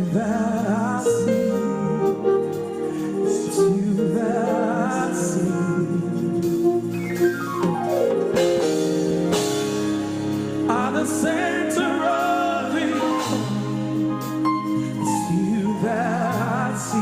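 Gospel praise music: voices singing with keyboard accompaniment, including a descending run of notes about seven seconds in.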